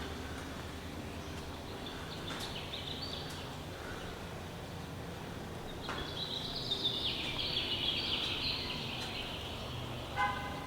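Birds chattering in high, rapid twittering runs over a steady low background hum, strongest a little past the middle. A short, lower pitched call comes near the end.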